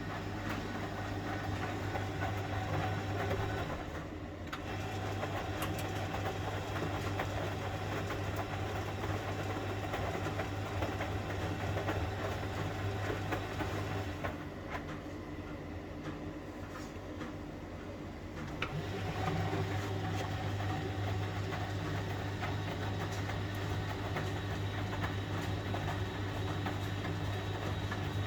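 1971 Constructa Garant 491 washing machine running its wash cycle: a steady motor hum with drum noise, which drops away for a few seconds in the middle and then starts up again.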